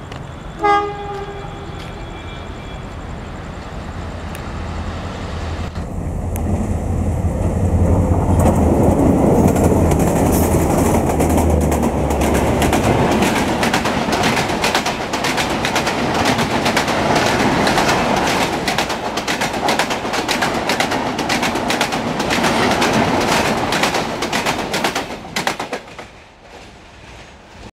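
Alco diesel locomotive giving a short horn blast about a second in, then running past with a deep engine rumble. The coaches follow, clattering rapidly over the rail joints, and the sound falls away abruptly near the end.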